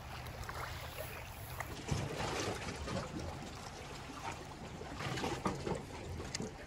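Small lake waves lapping and trickling over a pebble shore, with a low rumble of wind on the microphone.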